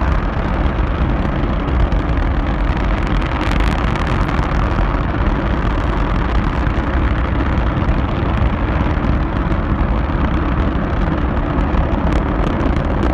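Large rocket motor firing in a horizontal static test: a loud, steady rumbling rush of noise, heaviest in the deep bass, with no change in strength.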